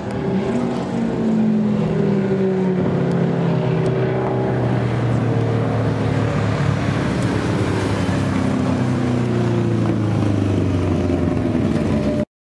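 Open-wheel racing car's engine running at speed, a steady engine note that rises briefly at the start and sags a little in places, then cuts off suddenly near the end.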